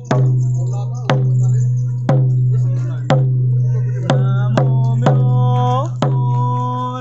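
Hand-held Buddhist prayer drums, uchiwa daiko fan drums, struck in a steady beat about once a second, with one quick double beat about four seconds in, under a low ringing tone and chanting.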